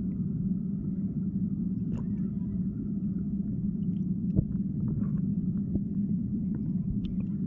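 Underwater river ambience heard through a submerged camera: a steady low rumble of flowing water with scattered faint clicks, the sharpest about halfway through.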